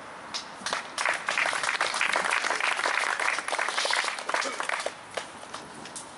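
Audience applauding: clapping starts within the first second, holds for a few seconds and thins to a few scattered claps near the end.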